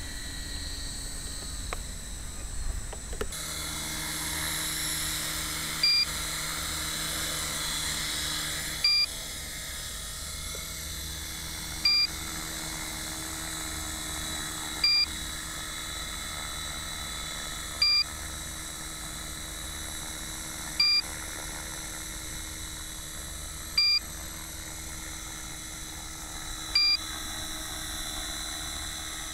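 Small electric RC helicopter, a T-REX 450 PRO, flying with a steady whine from its motor and rotors. From about six seconds in, the radio transmitter's low-battery alarm beeps about every three seconds, louder than the helicopter.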